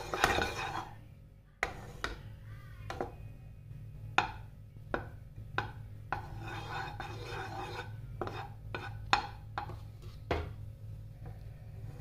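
A wooden spatula stirs and scrapes melting ghee around a nonstick kadhai, knocking sharply against the pan about a dozen times, with stretches of scraping near the start and again midway.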